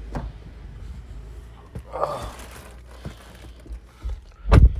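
Maruti Suzuki Brezza's door shutting with a solid, deep thud near the end, after a few light knocks and a rustle as someone gets in.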